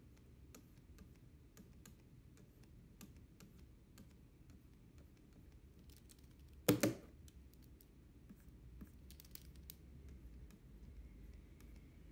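Faint, scattered light clicks of a stylus pen tapping and moving on a pen display's screen, with one much louder double knock a little past halfway.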